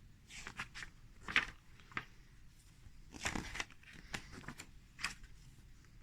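Paper pages of a small book being turned and handled: irregular short rustles and flicks, the loudest about a second and a half in.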